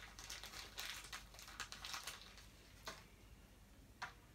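Small clear plastic bag crinkling faintly as tiny plastic toy missiles are handled, then two light plastic clicks near the end as the missiles are fitted onto the front of a 1980s G.I. Joe Devilfish toy boat.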